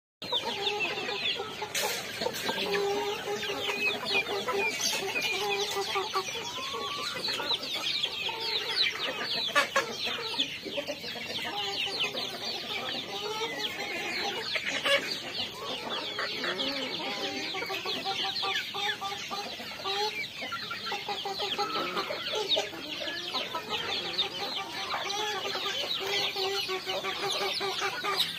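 A flock of young chickens clucking and peeping continuously as they feed, many quick high peeps overlapping lower repeated clucks and calls.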